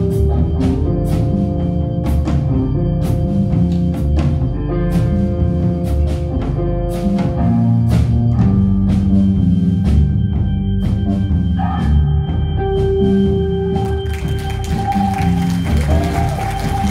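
Live rock band playing an instrumental passage on drum kit, organ-like keyboard, bass and guitar, with regular drum strikes under sustained keyboard chords. The drumming stops about fourteen seconds in, and a high held note carries on to the end.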